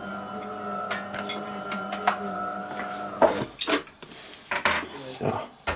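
A steady machine hum with several tones runs until about three seconds in and then stops. After that, stainless steel mixing bowls knock and clink several times as ingredients are handled by hand.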